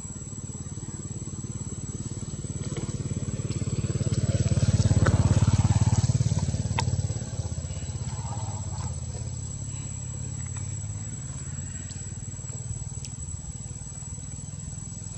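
A low engine rumble that grows louder to a peak about five seconds in, then fades back to a steady drone.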